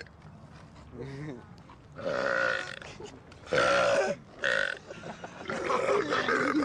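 A man burping several times: a faint short belch about a second in, two loud belches about two and three and a half seconds in with a short one just after, then a long drawn-out burp near the end.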